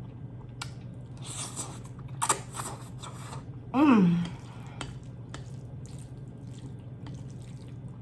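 Close-up eating sounds of spicy ramen noodles: wet slurps and chewing with small mouth clicks. About four seconds in comes a short hum from the eater that falls in pitch, the loudest sound. A steady low hum runs underneath.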